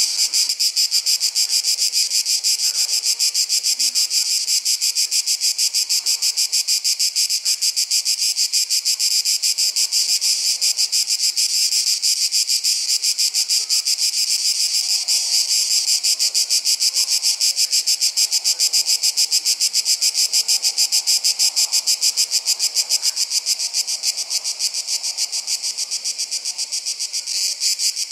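Summer insect chorus: a loud, high-pitched trill that pulses fast and evenly without a break, going slightly uneven near the end.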